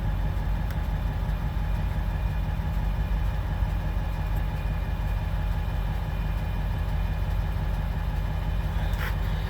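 An engine idling steadily: a low, even hum with no change in speed.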